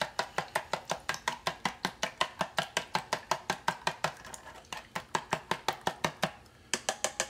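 Eggs being beaten with chopsticks in a plastic container: a fast, even clicking of the sticks against the container, about six a second. The clicking pauses briefly about four seconds in and stops with a short last flurry near the end.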